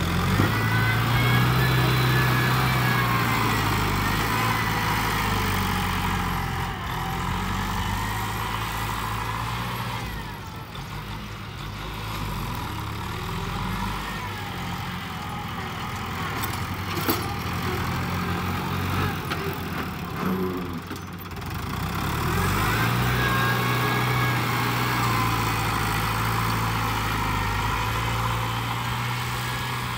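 New Holland TS90 tractor's diesel engine working hard as it pushes dirt, its note climbing right at the start and again about two-thirds of the way through, with brief easings around ten and twenty-one seconds in.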